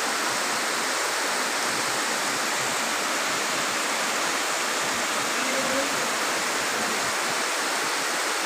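Heavy monsoon rain pouring down onto a flooded yard: a dense, steady hiss.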